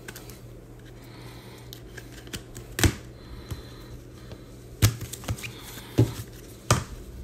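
Several sharp taps and clicks of trading cards and cardboard boxes being handled and set down on a table, four of them louder and a second or so apart in the second half.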